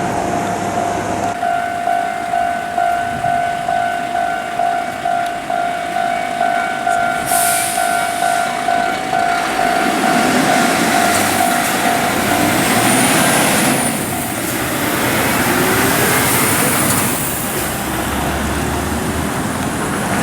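Level-crossing warning bell ringing steadily at about two strokes a second. About ten seconds in, a heavy double-trailer truck passes through the crossing; its engine and tyres drown out the bell for several seconds.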